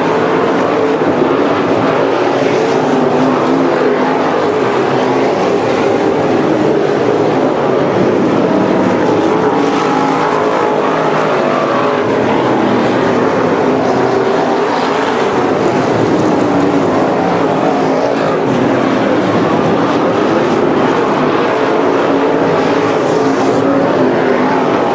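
A field of dirt-track modified race cars running at speed around the oval, their V8 engines making a loud, steady, continuous drone.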